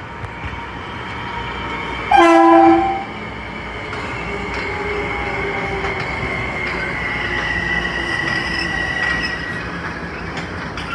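Bombardier M7 electric commuter train blowing one short horn blast about two seconds in, then rolling into the station with a rising rumble and a steady high-pitched wheel squeal as it slows to stop.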